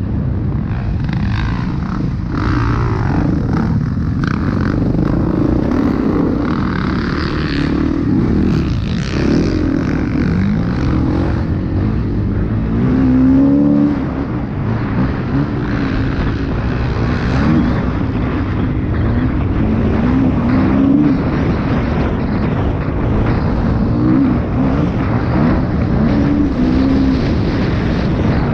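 Dirt bike engine ridden hard on a motocross track, revving up and falling back again and again as the throttle opens and closes through corners and jumps. Its level drops briefly about halfway through.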